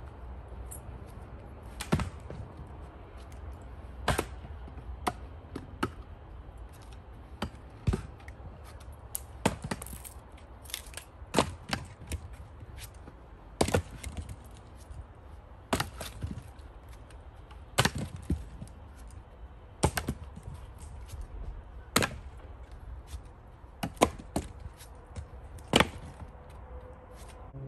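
An axe chopping into wood: sharp strikes about every two seconds, some followed closely by a lighter second blow, over a low steady rumble.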